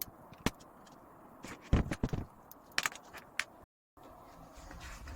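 Small hard parts of an RC model kit clicking and knocking as they are handled during assembly, with a cluster of louder knocks about two seconds in. The sound drops out abruptly for a moment near the end.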